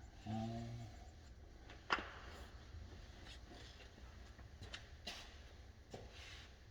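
A few light clicks and knocks of plumbing parts being handled, the sharpest one about two seconds in, with smaller ones later.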